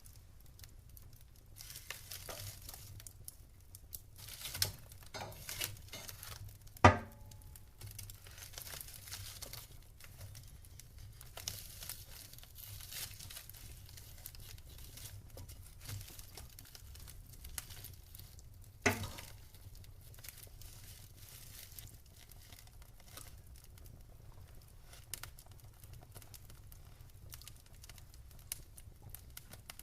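Wood fire crackling in a fireplace: irregular small crackles and hiss, with two loud, sharp pops, one about a quarter of the way in and another about two-thirds through.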